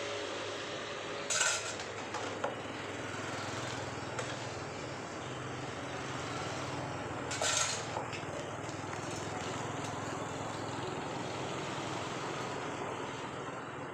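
Dishes being washed by hand: a steady rushing noise, with dishware clinking sharply twice, once about a second and a half in and again about halfway through.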